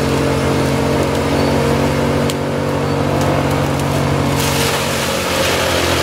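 Large mobile wood chipper running steadily under load, its engine a constant hum while the grapple feeds brush, with an occasional sharp crack. About four and a half seconds in, a rush of hissing noise swells over the engine as material goes through the chipper.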